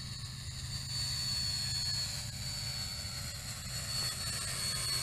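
Eachine E511 foldable quadcopter's motors and propellers whining steadily as it makes a low, fast pass.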